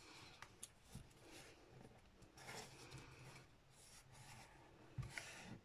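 Faint rustling and rubbing of card stock as glued paper edges are folded over and pressed down by hand, with a soft knock about five seconds in.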